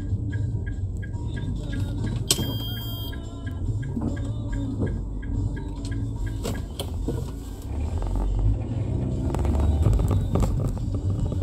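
Low rumble of a car's engine and road noise heard inside the cabin, with a rapid light ticking in the first couple of seconds and a short electronic beep about two seconds in.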